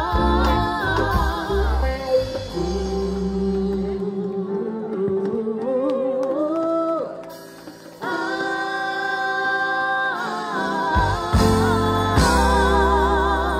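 Live reggae band with women singing long held notes with vibrato. The bass drops out about four seconds in, leaving the voices climbing, and comes back in at about eight seconds.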